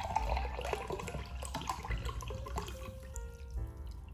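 Water poured into a glass vessel, splashing and gurgling for about the first two and a half seconds, then thinning out.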